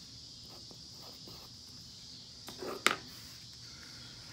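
Pencil scratching faintly on paper, then a sharp tap on the wooden workbench about three seconds in, the loudest sound, over a steady high hiss.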